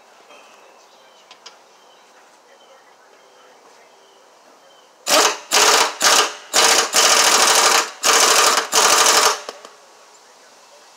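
Pneumatic impact wrench hammering in a series of bursts, four short ones then three longer ones, starting about halfway through. It is tightening a mower blade bolt that had worked loose.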